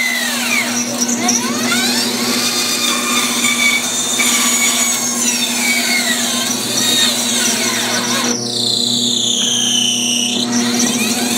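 Bandsaw resawing a thick chestnut slab: the saw's motor hums steadily under the cut while the blade whines in tones that slide up and down, with a sharper, higher squeal from about eight to ten seconds in. The blade is one the woodworker thinks is dull and needs replacing.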